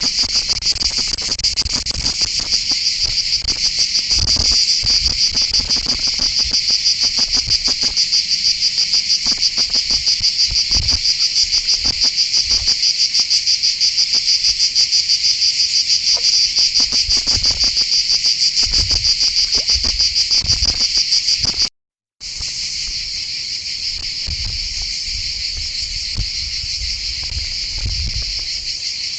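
Loud, steady insect chorus with a rapid, even pulsing rhythm, and scattered low thumps beneath it. The sound cuts out for a moment about three-quarters of the way through, then carries on slightly quieter.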